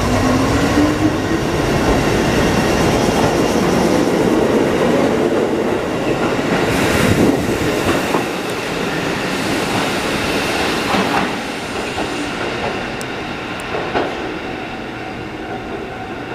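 Kotoden 1200-series electric train pulling out and passing close by. Its motors whine, rising steadily in pitch over the first few seconds as it gathers speed, over a constant rumble of the cars. Later come some wheel clatter and a few clacks over rail joints.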